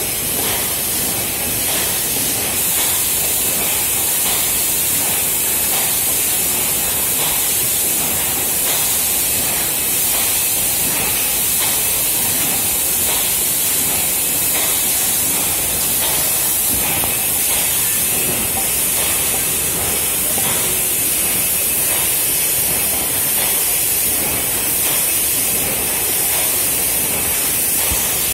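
High-speed rotary sticker labelling machine running: a steady, loud mechanical noise with a strong hiss over it.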